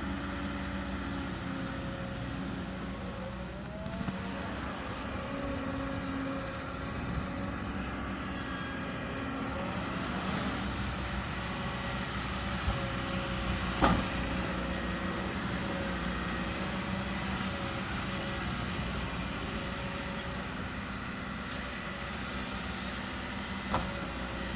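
Kobelco hydraulic excavator's diesel engine running steadily under work, its pitch wavering slightly, with a sharp knock about 14 seconds in and another near the end.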